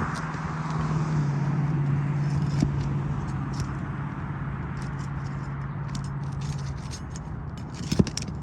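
A steady low motor hum that cuts out about seven seconds in, under scattered scraping and clicking, with one sharp knock near the end.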